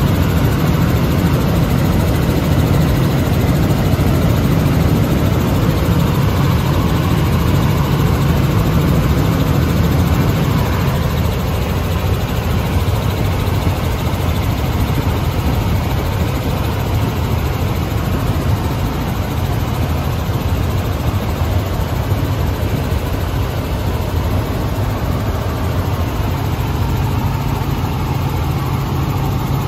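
Robinson R44 helicopter in flight, heard from inside the cabin: the steady drone of its six-cylinder piston engine and main rotor, easing slightly in loudness about a third of the way through.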